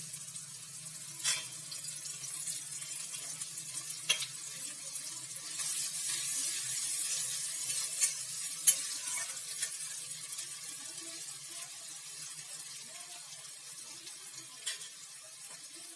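Chopped onion frying in hot mustard oil in a kadai, sizzling steadily, with a spatula stirring and knocking against the pan a few times. The sizzle swells around the middle and eases toward the end.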